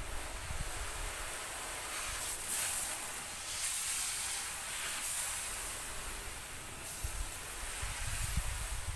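Water spray from a garden hose nozzle hissing onto a car's bonnet and windscreen. It grows louder and softer as the spray moves across the panels.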